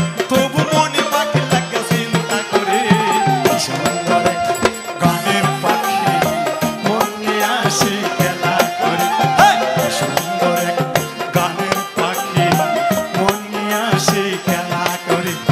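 Live Bengali folk song: a man singing over a folk ensemble of flute, harmonium and hand drums, with a steady drum rhythm.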